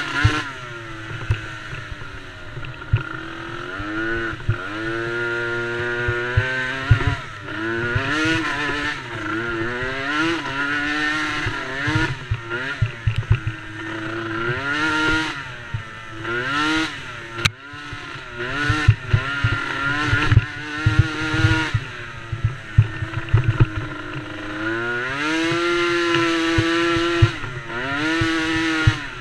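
Small single-cylinder youth race quad engine (DRR DRX90) revving up and dropping back again and again, its pitch climbing and falling every couple of seconds as it accelerates and backs off.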